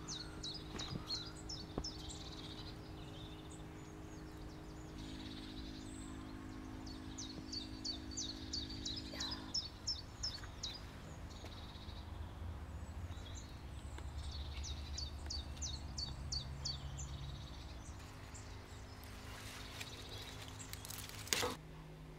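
Songbird singing outdoors in three short bouts of quick high chirps, over a steady low hum. A brief sharp knock sounds near the end.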